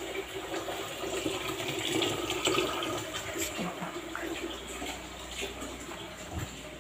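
Water running into a plastic container, a steady splashing trickle that gets fainter in the second half.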